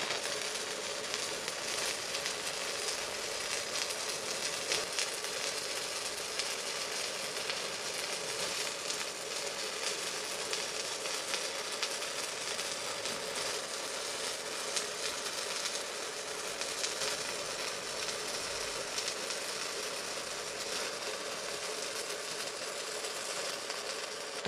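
Stick (MMA) welding arc from a Kazaki MMA 200KZ mini inverter welder burning a 3.2 mm electrode: a steady crackling sizzle with spatter and a faint steady buzz under it. It stops at the very end as the arc is broken.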